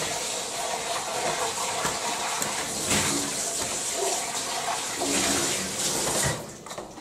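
Water running steadily from a kitchen tap, shut off about six and a half seconds in.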